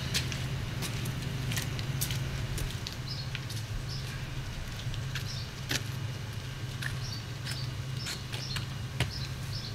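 Garbage truck's engine idling with a steady low hum, under scattered light clicks and brief high chirps.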